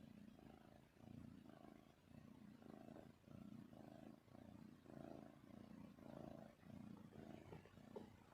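Kitten purring softly, a low rumble that swells and fades about twice a second with each breath in and out, with a few faint clicks near the end.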